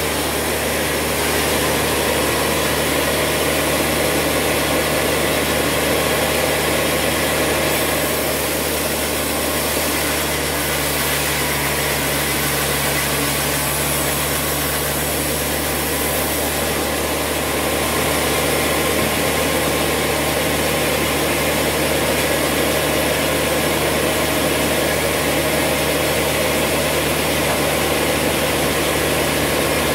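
Large band sawmill running steadily, its drive giving a low continuous hum under the noise of the blade as a squared timber beam is fed through it and cut lengthwise.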